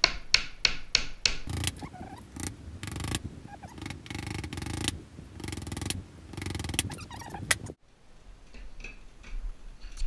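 A hammer driving a finishing nail into a half-inch plywood hive box: about six quick blows in the first second and a half. Then several seconds of wood rubbing and scraping as the box is handled. The sound cuts off abruptly near the end.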